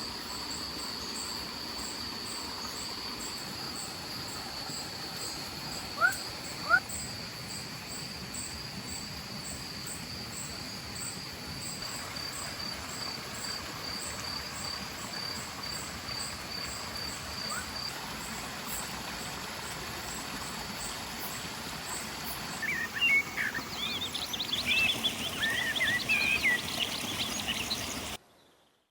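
Tropical forest at night: insects trill steadily on one high note with a faster pulsed chirping above it, over the even rush of a nearby stream. Two short, loud rising calls come about six seconds in. Near the end the insect trill stops, birds take over with quick chirping calls, and the sound cuts off suddenly.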